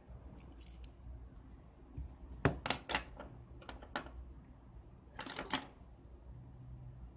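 Light, sharp clicks and taps of small tools and parts being handled on a smartphone's frame during a repair: a run of clicks about two and a half seconds in, then a second quick cluster about five seconds in.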